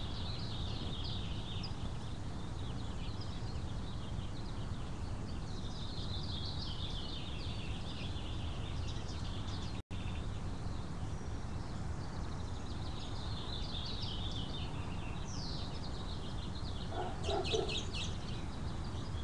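Outdoor birdsong: several birds singing and chirping over a steady low background hum, with a cluster of sharp chips near the end.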